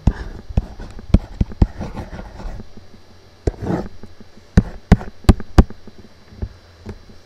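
A computer mouse button clicking sharply about a dozen times at irregular intervals, as handwritten letters are drawn with the mouse one stroke at a time. A short, softer rustle comes about halfway through.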